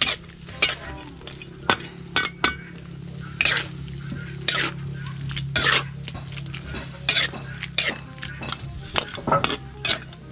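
Metal spatula stirring a thick stew in a large metal wok, a short scrape of metal on metal every second or so, keeping the stew from sticking to the pan.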